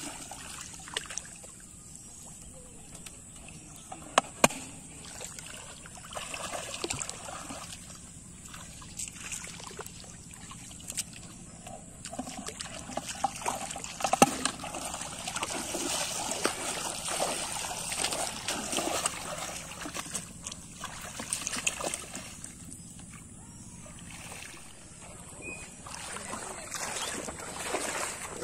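Wading through shallow water: legs splashing and sloshing in uneven surges, with a few sharp clicks about four seconds in and again around fourteen seconds.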